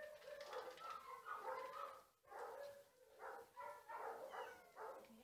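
A dog whining and yipping: a run of short, high-pitched cries, some drawn out and some clipped, with a brief pause about two seconds in.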